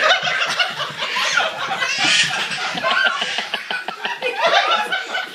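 People laughing hard in choppy bursts, with a brief high-pitched peak about two seconds in.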